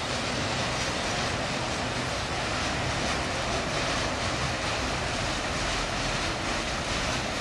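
Empty autorack freight cars rolling past, a steady rumble of steel wheels on rail.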